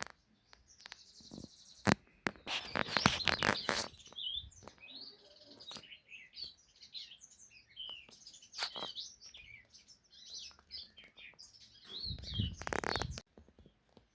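Small birds chirping repeatedly in short high calls, with loud brief bursts of noise about two seconds in and again near the end.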